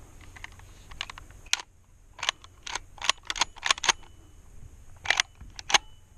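A quick, irregular run of small sharp mechanical clicks and light rattles, about a dozen of them, with two louder ones near the end.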